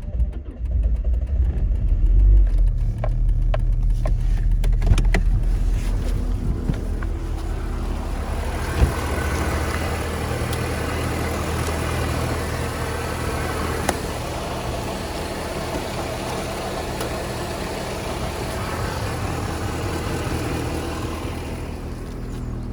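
1999 Volvo S40's 1.8-litre four-cylinder petrol engine running after a cold start at −1 °C, a steady deep drone that is heavier in the first few seconds. A single sharp click about nine seconds in.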